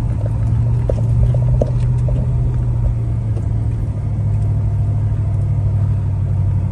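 Off-road vehicle's engine running with a steady low drone while climbing rough ground, with a few short knocks and rattles in the first couple of seconds.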